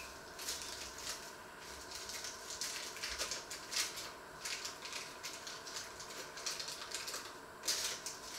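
Irregular crackling and rustling, several small bursts a second with a couple of louder ones, as food is handled at the stove.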